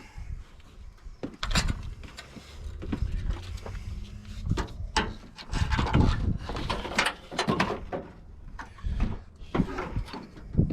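Irregular knocks, clicks and scraping of hand tools and a heavy battery cable being worked, as the solenoid-to-starter cable is taken off its post.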